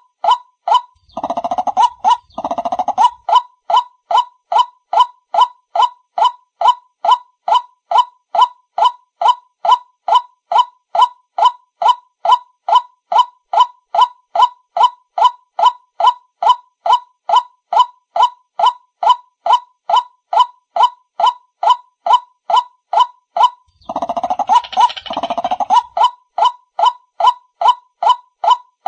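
White-breasted waterhen 'ruak-ruak' call played as a lure: an unbroken, evenly spaced string of about two and a half honking notes a second, with two louder, rougher stretches of calling about a second in and near the end.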